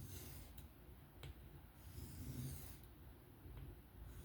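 Knife blade stroked across a 1200-grit Atoma diamond plate in freehand sharpening: a faint scratchy rasp in about three strokes, each roughly a second long.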